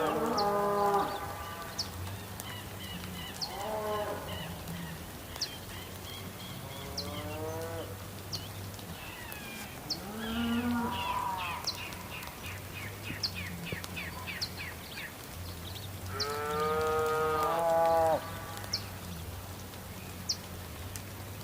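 Cattle mooing about five times, one long loud moo near the end, over a steady background of rain with scattered sharp drips.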